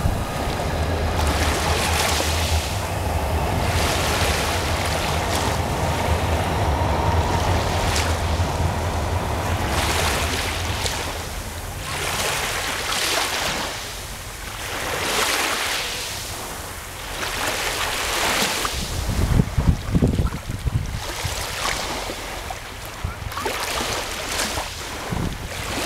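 Black Sea waves surging and washing in, one after another, with wind buffeting the microphone. A steady low rumble runs through the first third, and loud wind thumps on the microphone come about twenty seconds in.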